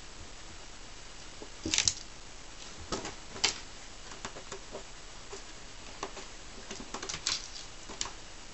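A Ragdoll kitten's paws and claws tapping, scratching and scuffing on a felt rug and wooden floorboards as she plays: a string of short, irregular clicks and scrapes, loudest in a cluster about two seconds in, again around three and a half seconds, and near seven seconds.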